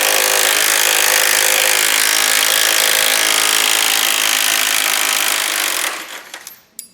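Electric power tool cutting through steel on a car's front suspension, running steadily under load for about six seconds, then winding down near the end; the cut leaves the metal hot enough to smoke.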